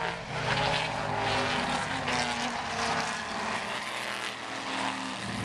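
Engines of a pack of historic GT race cars running past on the circuit: several engine notes sound at once, each shifting up and down in pitch over a steady noise bed.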